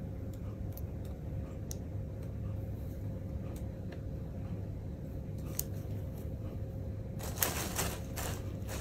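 Plastic sheeting crinkling with faint scattered ticks as a kitten shifts underneath it, then a louder bout of crackly rustling about seven seconds in, over a steady low room hum.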